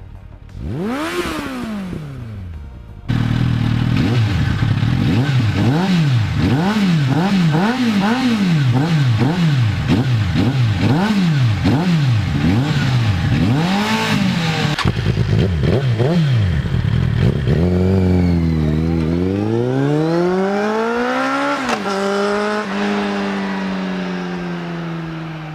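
Suzuki Bandit 600's air- and oil-cooled inline-four engine through an aftermarket slip-on exhaust, revved once about a second in, then blipped repeatedly, a little more than once a second, for about twelve seconds. Near the end it pulls up in pitch under acceleration, drops sharply as it shifts up, and holds a lower note that slowly falls.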